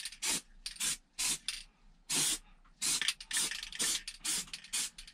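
Aerosol can of plastic primer sprayed onto a plastic car bumper in a dozen or so short hissing bursts, one a little longer about two seconds in. The bursts go on a light dusting coat.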